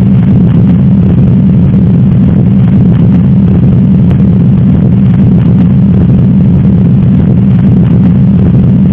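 Stethoscope recording of heart sounds, heard as a loud, steady low rumbling noise that does not let up and is cut off abruptly at the end.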